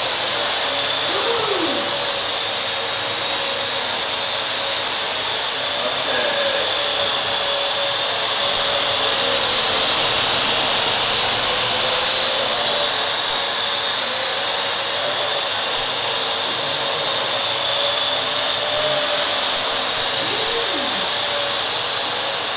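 Parrot A.R. Drone quadcopter's four electric motors and propellers whining and buzzing steadily as it hovers and moves about. The pitch wavers slightly as the rotor speeds adjust.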